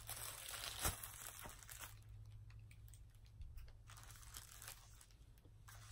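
Faint rustling and crinkling of a plastic poly mailer bag being handled, with a few soft clicks and one sharper click about a second in.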